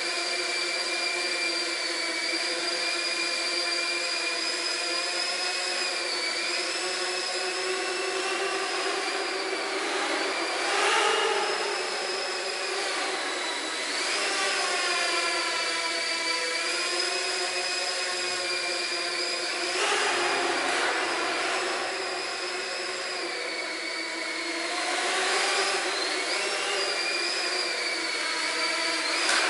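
Small quadcopter drone's motors and propellers whining in flight, the pitch sliding up and down as the throttle changes, with louder swells a few times.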